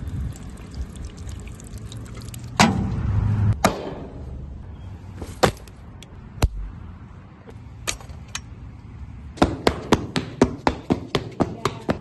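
Foley sound effects: a few scattered sharp knocks and thuds over a low rumble, then a quick, even run of taps, about three or four a second, near the end.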